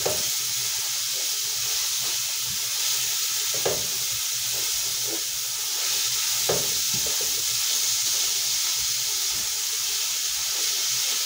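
Chopped onions and garlic sizzling steadily in hot oil in a pot, stirred with a spatula that knocks against the pan a couple of times.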